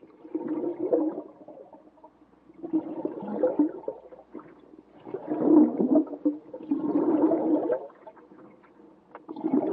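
Stomach rumbling and gurgling in bursts of about a second, five in all, roughly two seconds apart: the churning gut of lactose intolerance.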